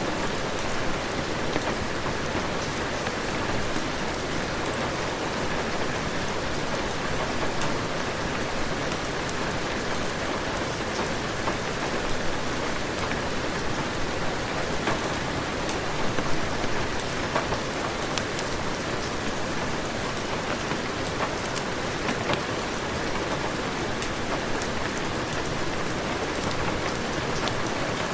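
Heavy rain falling steadily, a dense even hiss dotted with many sharp ticks of drops.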